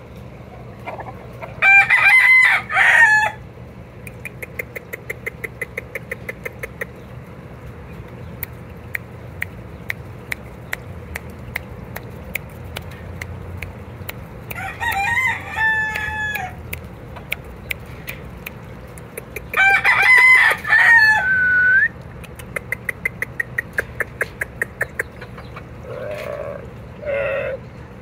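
Gamecocks crowing three times, each crow lasting one to two seconds, the loudest about two seconds in and about twenty seconds in. Between the crows a fast, even ticking comes and goes, and a few low clucks sound near the end.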